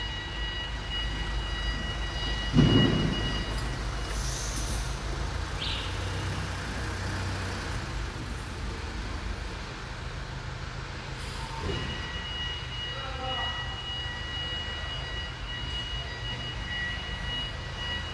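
Steady low mechanical rumble with a thin high whine that drops out and later returns, and a single loud thump about three seconds in.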